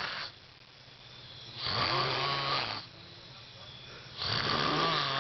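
Snoring in a steady rhythm: the tail of one snore at the very start, then two full snores, about a second and a half in and about four seconds in, each lasting about a second, with quiet breathing between.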